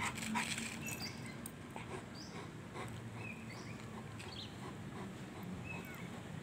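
Rottweiler whimpering faintly in short, arched high-pitched whines, about one a second, while it holds a down-stay on its side.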